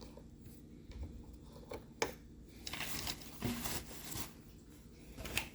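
Faint handling noises from a Roomba's plastic underside as its small front caster wheel is worked on: scattered light clicks with short scrapes and rustles. The wheel is clogged with hair and particles, which make it turn tight.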